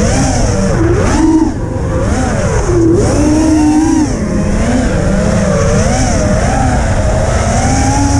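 Racing quadcopter's brushless motors and propellers whining, the pitch swinging up and down quickly with the throttle as it flies. A steady rush of wind on the onboard camera's microphone sits underneath.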